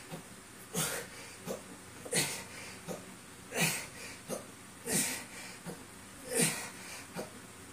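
A man breathing hard and rhythmically through a set of barbell bench press reps: five forceful exhales about a second and a half apart, each with a shorter breath in between.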